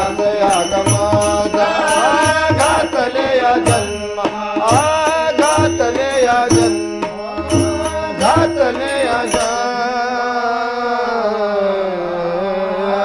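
Marathi abhang bhajan: voices singing with harmonium, tabla and small hand cymbals keeping the beat. About nine and a half seconds in the drum and cymbal strokes stop and a long final note is held over the harmonium as the song closes.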